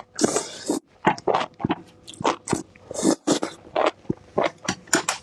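Close-miked crunching and chewing of raw bird's eye chili peppers and enoki mushrooms, with sharp, irregular crunches a few times a second.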